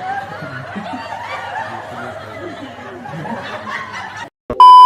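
Several people snickering and stifling laughter, with low murmured talk. About four and a half seconds in, the sound cuts out and a loud, steady high beep of about half a second takes over.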